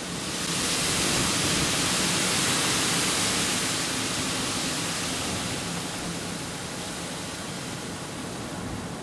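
A gust of wind rushing over an open field, a steady hiss that builds in the first second and eases off over the next few seconds.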